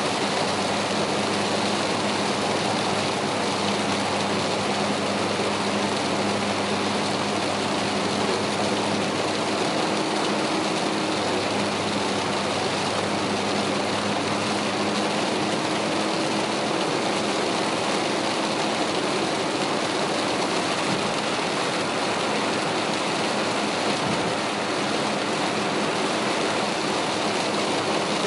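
Car driving at expressway speed through heavy rain, heard from inside the cabin: a steady hiss of rain and tyres on the flooded road over a low, even engine hum.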